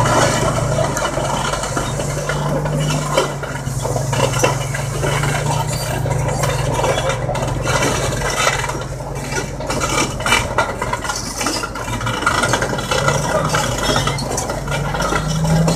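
Heavy diesel engine of mining equipment running steadily with a low, even drone, with many small knocks and rattles over it.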